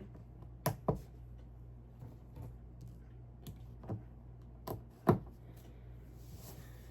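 Small plastic Lego pieces clicking and tapping as they are handled and pressed onto a plate, about seven separate clicks, the loudest a little after five seconds in.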